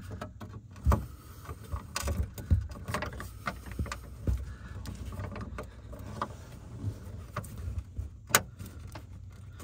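Phillips screwdriver turning out a screw in the plastic under-dash panel: scattered small clicks and scrapes, with a sharper knock about a second in and another near the end. The screw is almost stripped.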